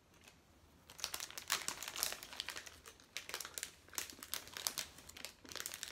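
Plastic food wrapper crinkling as it is handled, a dense crackle that starts about a second in.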